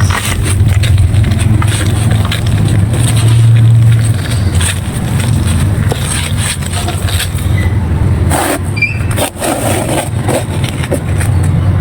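Dry clay crumbling and crunching close to the microphone: a dense run of small crisp cracks over a steady low rumble.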